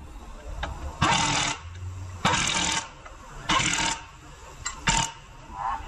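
Hand ratchet with a socket clicking in three short bursts, about a second apart, as it is worked on a front suspension bolt, with a few single metal clicks.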